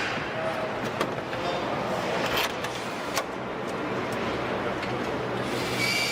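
Car assembly line noise: a steady machinery hum with sharp clicks and knocks of tools and parts about a second in, near two and a half seconds and just after three seconds, and a hiss near the end.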